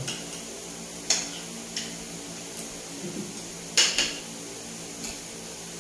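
Tableware clinking during a meal, a spoon or fork tapping against a plate. There are about seven short, light clinks, the loudest a quick double clink about four seconds in.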